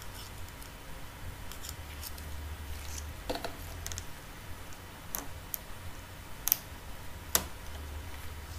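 Scattered small clicks and scrapes of a metal pry tool on a Huawei Ascend G510 smartphone's circuit board and frame as the board is pried loose and lifted out, over a steady low hum.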